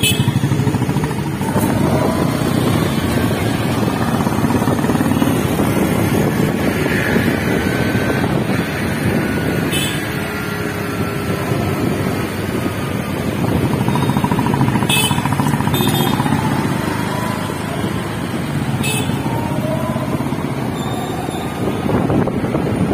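Motorcycle engine running with wind rush and the noise of surrounding city traffic while riding, its pitch drifting up and down with speed. A few short clicks come in around the middle.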